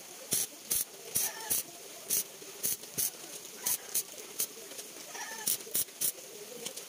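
Stick (arc) welder tack-welding steel roller chain: a string of short crackling bursts from the arc, struck and broken again and again at an uneven pace of one or two a second, over a steady hiss.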